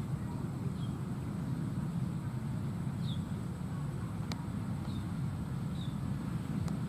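Steady low rumble of outdoor background noise, with about five faint, short, high chirps of a small bird scattered through it and two sharp clicks.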